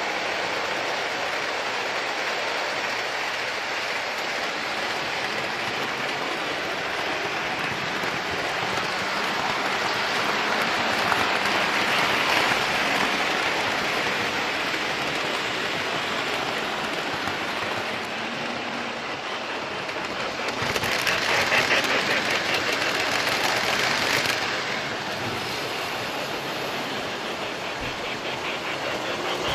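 Train passing with a steady rushing rolling noise, and a spell of rapid, even wheel clatter about two-thirds of the way in.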